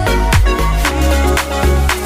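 Background music with a steady dance beat: heavy bass and a sharp hit about twice a second.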